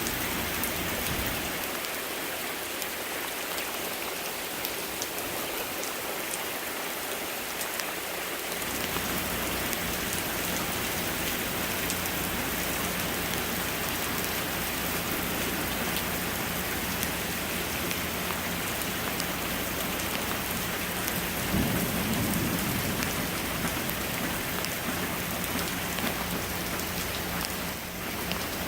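Pouring rain falling steadily, with individual drops ticking close by. A brief low rumble swells about three quarters of the way through.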